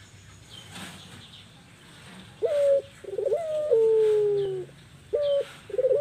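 Female puter pelung (Barbary dove) cooing: a short coo followed by a longer coo that steps down in pitch. The phrase starts again near the end. This is the coo that keepers use to lure male doves.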